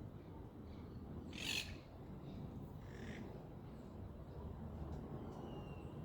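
A bird giving a short harsh call about a second and a half in, a weaker one around three seconds and a faint thin whistle near the end, over a steady low rumble of outdoor background.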